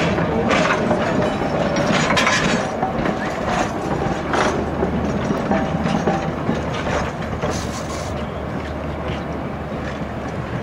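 Narrow-gauge passenger coaches rolling slowly past, their steel wheels knocking and clicking over the rail joints over a steady rumble. The sound grows quieter near the end as the last car goes by.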